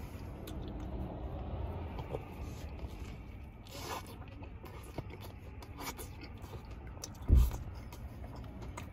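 A bite into a toasted sub loaded with lettuce and vegetables, with a short crunch about four seconds in, then close-up chewing with small wet clicks. There is a dull thump a little past seven seconds.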